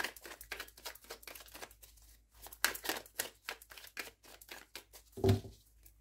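Hands shuffling a deck of oracle cards: a quick, uneven run of soft card flicks and slaps. A brief low hum about five seconds in.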